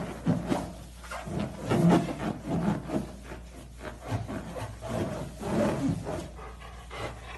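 A dog's fur, chin and mouth rubbing and pressing on a large latex balloon, making irregular rubbery squeaks and scrapes.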